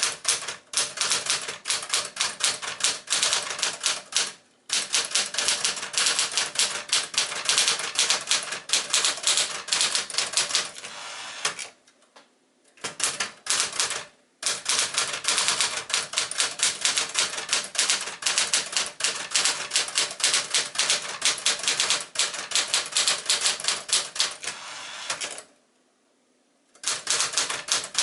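Sears Celebrity manual portable typewriter (a rebadged Smith-Corona Galaxie) being typed on briskly, with rapid keystrokes in runs. There are short pauses about 4.5, 12 and 14 seconds in and a longer pause near the end.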